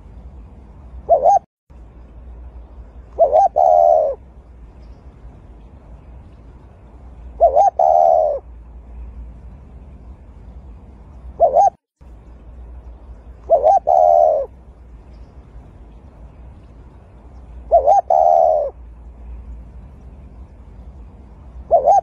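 Dove cooing: short phrases of low, soft coos repeat every two to four seconds over a faint steady hum.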